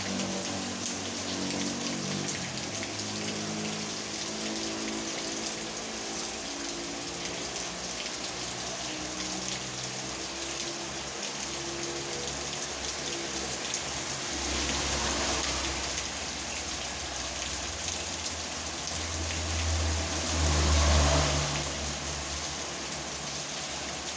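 Steady rain falling, an even hiss of drops. A low rumble swells and fades about two-thirds of the way in, and again, louder, near the end.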